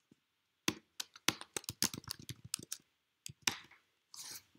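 Typing on a computer keyboard: a fast run of keystrokes lasting about two seconds, then a few separate key presses.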